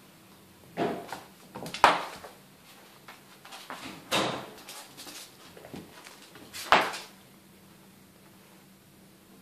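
A kitten scuffling and knocking against a laminate floor as it rolls and lunges: four bursts of scuffs and thuds, the sharpest about two seconds in and near seven seconds, then quiet.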